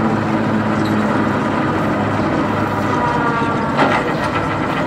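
Truck engine running steadily with a low, even drone, and a single sharp knock near the end.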